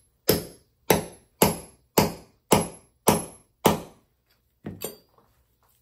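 A hammer striking a hand grommet tool set on the trampoline cloth, driving in a grommet: seven sharp, evenly spaced blows about two a second, then a lighter double knock near the end.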